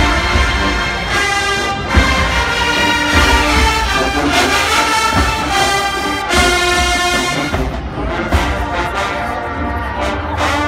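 Show-style marching band playing loudly: massed brass holding and changing chords over low drum pulses.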